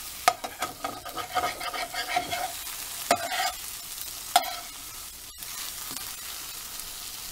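Eggs and sausage frying in a nonstick pan with a steady sizzle, while a utensil scrapes around the pan and knocks against it about three times.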